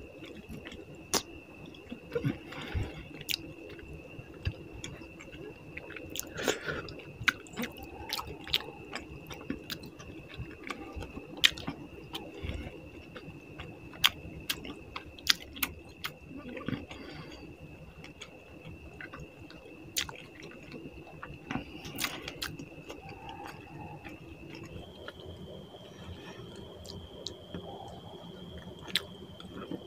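A person chewing and smacking their lips while eating rice with fish curry, with frequent sharp wet mouth clicks at irregular intervals.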